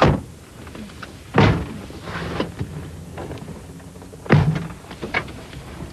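Car doors of a taxi being shut: a heavy thunk at the start, another about a second and a half in and a third a little past four seconds, with lighter knocks between.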